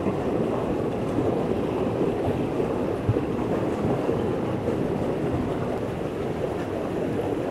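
Steady rush of a fast-flowing river current, with one light knock about three seconds in.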